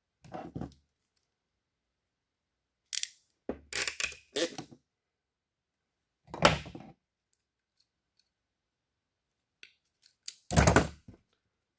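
Handling noise from wires and a plastic connector being worked by hand: a handful of short rustles and knocks a few seconds apart, the loudest about halfway through and near the end.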